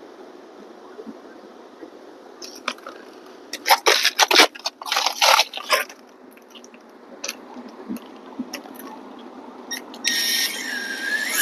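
Cordless drill driving a screw through a flexible solar panel's mounting hole into the roof: the motor whines steadily for about two seconds near the end, its pitch shifting as the screw goes in. Earlier, about four to six seconds in, a run of sharp scraping and rustling noises.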